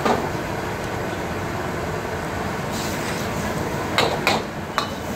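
Steady background noise of a busy street-food stall, with a sharp knock at the start and three more quick knocks about four seconds in.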